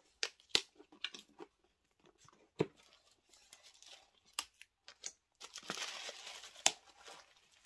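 A cardboard gift box being opened by hand: scattered light taps and knocks as the lid comes off, then tissue paper rustling and crinkling for about a second and a half near the end.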